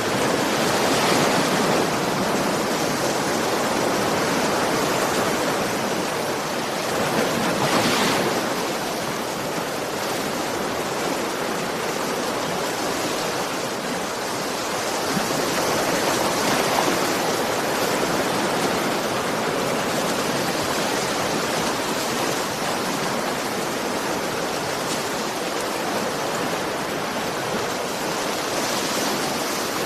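Ocean waves on a shore: a continuous rush of surf that swells and eases now and then.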